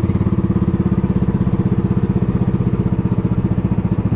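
Small engine of an outrigger fishing boat (bangka) running steadily at cruising speed, with a rapid, even putter.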